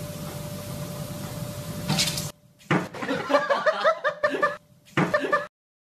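Steady hiss with a faint hum, a knock about two seconds in, then a person laughing in short repeated bursts that cut off suddenly near the end.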